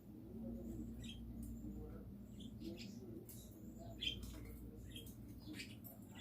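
Budgie making soft, scattered chirps and short squeaky chatter notes over a faint steady hum.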